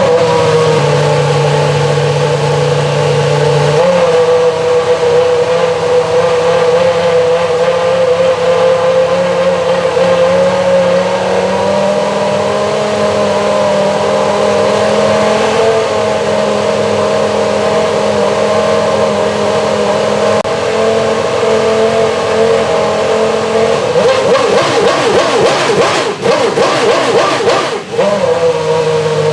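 Renault R25 Formula One car's V10 engine held at a steady high idle during its warm-up. Its pitch steps up slightly a few times, wavers with quick blips and two brief dips near the end, then settles lower.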